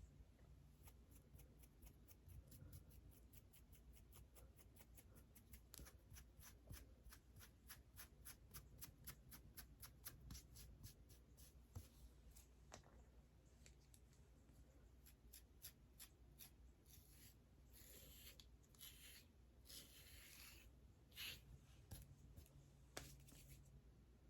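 Fingernails scratching through hair and scalp close to the microphone, in quick, even strokes about three or four a second, giving way later to a few longer scraping scratches.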